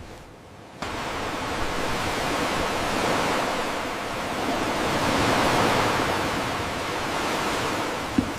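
Sea surf rushing, a steady wash of noise that starts abruptly about a second in and swells and eases twice, with a short thump near the end.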